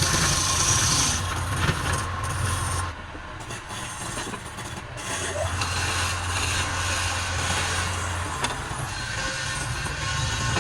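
Woodturning lathe running with a steady low hum and a hiss above it. The hum drops away for a couple of seconds about three seconds in, then comes back.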